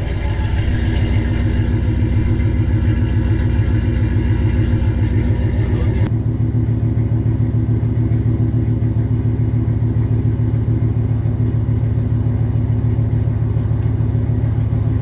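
GMC Sierra pickup's 5.3 L LM7 V8 with long-tube headers idling with a steady, even exhaust pulse. About six seconds in the sound turns deeper and more muffled.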